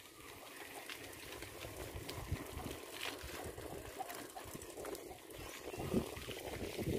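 Wind buffeting the microphone as an uneven low rumble, over outdoor background noise with a few faint ticks.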